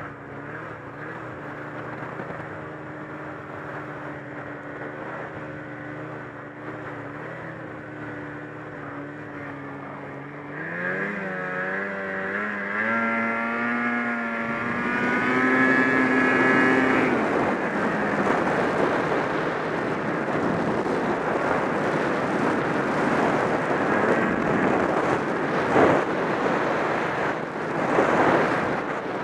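Ski-Doo snowmobile's 800 H.O. two-stroke twin engine running steadily, then revving up hard about ten seconds in, its pitch climbing as the sled accelerates under full throttle. From then on the engine runs high under a loud rushing of wind on the microphone at speed.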